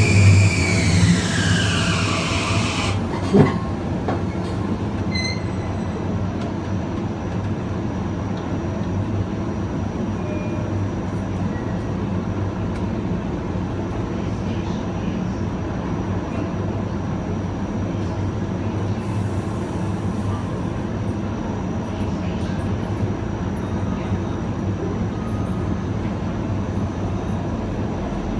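Long Island Rail Road Kawasaki M9 electric multiple unit heard on board. The Mitsubishi IGBT-VVVF inverter and AC traction motors whine, sliding down in pitch and cutting out about three seconds in. After that the car runs on with a steady rumble of wheels and motors, with a single knock just after the whine stops.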